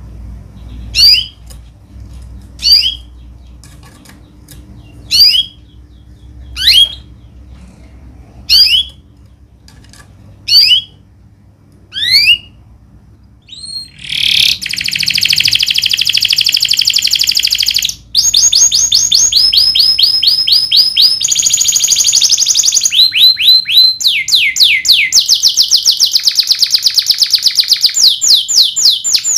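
Domestic canary giving single sweeping call notes, about seven of them, spaced a second and a half to two seconds apart. About 14 seconds in it breaks into continuous song of rapid rolling trills, each roll held a few seconds before switching to a new pitch.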